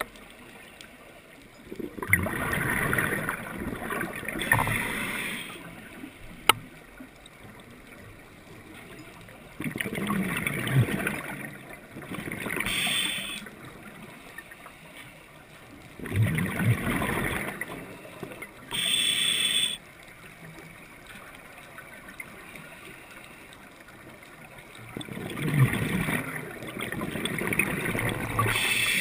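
A scuba diver breathing through a regulator underwater: four breaths about seven seconds apart, each a gurgling rush of exhaled bubbles together with a short hiss from the regulator, with quiet water noise in between.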